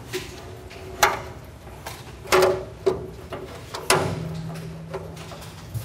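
A series of sharp knocks and clunks, five or so about a second apart and the loudest about two and a half seconds in, from cabinet parts being handled and fitted. A faint low hum sets in about four seconds in.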